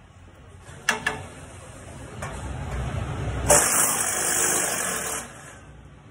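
Power ratchet running on a bolt: a couple of sharp clicks about a second in, then the tool runs for about three seconds, growing louder and loudest in its last second and a half, before it cuts off suddenly.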